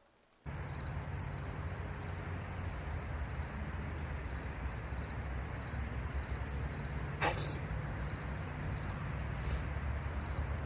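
Steady background noise with a low rumble and a high steady whine, starting abruptly half a second in. One short sharp sound comes about seven seconds in.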